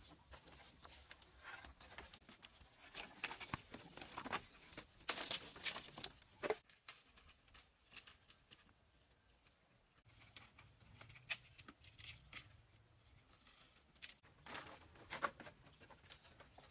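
Faint, irregular rustling, scraping and clicking of bamboo poles and split-rattan lashings being handled and tied, with a quiet stretch in the middle.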